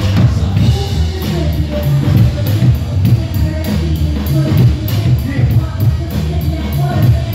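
Live band playing a jazz-rap groove, heard loud from the stage: drum kit with a steady cymbal beat over a repeating bass line.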